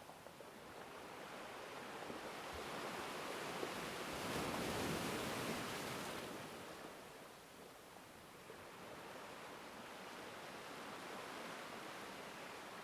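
Faint ocean surf: a steady wash of waves, with one swell building to its loudest about halfway through and then falling away.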